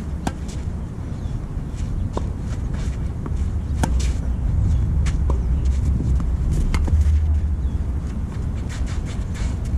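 Tennis rally: sharp pops of racket strings hitting the ball about every one and a half to two seconds, over a low rumble that grows louder in the middle.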